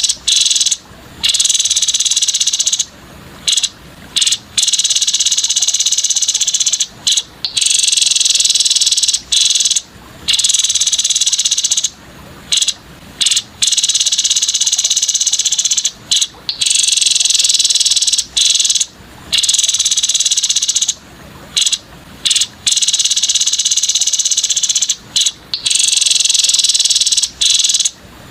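Grey-headed babbler (tepus kepala abu) song played as a masteran training recording: long, loud, high buzzy trills broken by short pauses. The same phrases seem to come round again every eight or nine seconds, as in a looped track.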